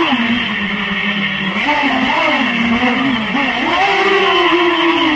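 FPV drone's motors and propellers whining, the pitch rising and falling with the throttle as it swoops, over a steady rushing hiss.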